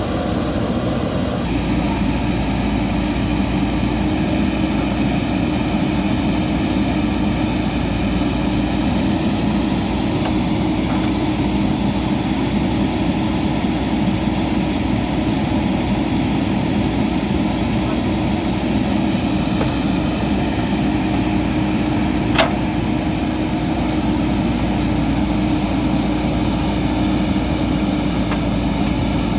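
JCB backhoe loader's diesel engine running steadily under work, a constant drone. One short sharp clank sounds once, past the middle.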